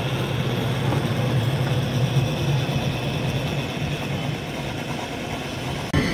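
Open tramcar of a cable-hauled Victorian tramway running along its rails, a steady rumble with a low hum from the car and its haulage cable. The sound changes abruptly near the end.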